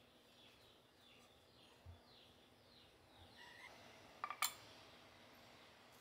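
A quick cluster of sharp clacks about four seconds in as a wooden chopping board is hung back on its wall hook, over faint bird chirps and near-silent room tone.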